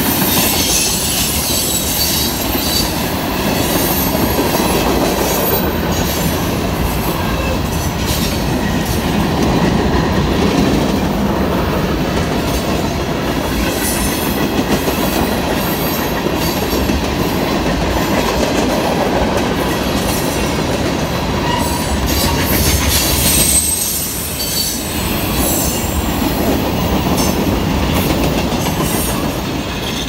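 Freight cars of a passing freight train, tank cars among them, rolling by at speed: a steady rumble of steel wheels on rail with repeated clicks over rail joints and thin high-pitched wheel squeal.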